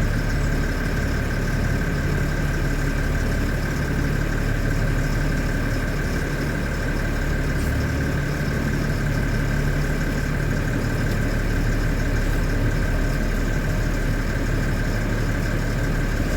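LMTV military truck's diesel engine running steadily, heard from inside the cab, with a thin steady high whine over the engine drone.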